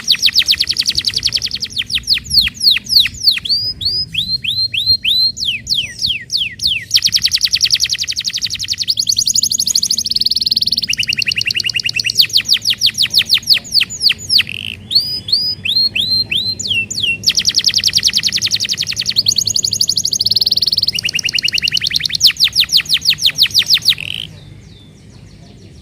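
Domestic canary singing a long, loud song of rapid trills and rolling tours, switching to a new phrase every second or two, then breaking off about 24 seconds in.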